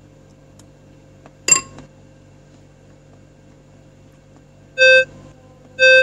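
Beep-test app on a phone sounding two short pitched shuttle-warning beeps about a second apart near the end, counting down to the turnaround beep. A single brief sharp click about a second and a half in.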